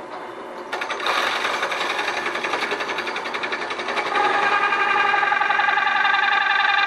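Drill press running with a large hole saw boring into a wooden log. About a second in, the teeth start biting with a fast, even chatter, and about four seconds in the cut settles into a louder, steady whine. The press is cutting under load with its pulley belt tension freshly tightened to stop the belt slipping.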